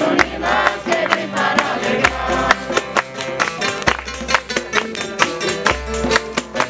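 Group of voices singing a festive song over instrumental accompaniment with a steady, evenly spaced beat.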